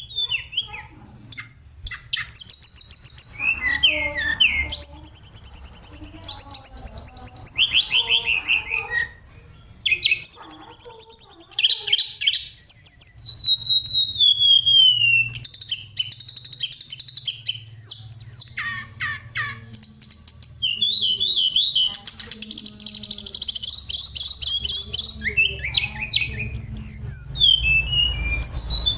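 Oriental magpie-robin (kacer) singing a long, varied song of clear whistles, fast chattering trills and repeated notes, with a slow falling whistle about halfway and only brief pauses.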